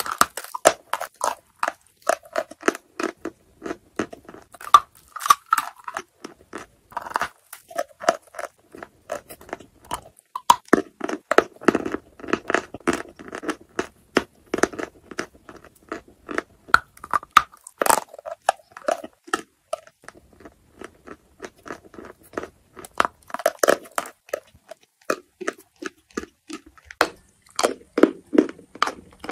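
Lumps of chalk being bitten and chewed: dense, irregular crunching, with many sharp cracks and crackles as the chalk breaks between the teeth.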